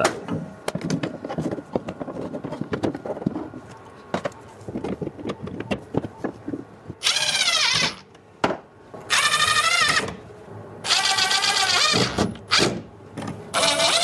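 Wooden dowels and mounting brackets knocking and clicking as they are handled, then a cordless drill-driver runs in four short bursts of about a second each from about seven seconds in, its pitch wavering, driving screws to fasten the brackets.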